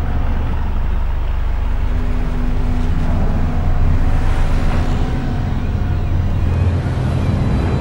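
Steady low rumbling drone of a suspense soundtrack, with faint held tones above it.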